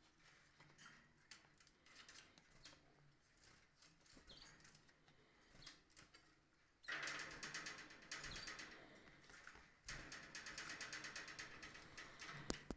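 Canaries in their cage: faint scattered ticks and rustles, then two bursts of rapid, fluttering, scratchy sound, the first about seven seconds in and the second, longer one about ten seconds in.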